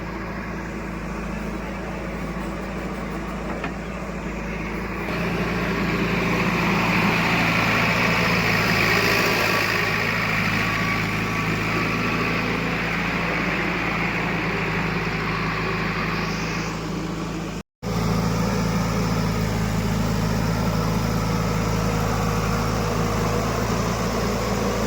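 Heavy diesel engine of earth-moving or farm machinery running steadily. About five seconds in it gets louder with more hiss above the engine note, as if working harder, and near eighteen seconds the sound cuts out for a split second before the steady running resumes.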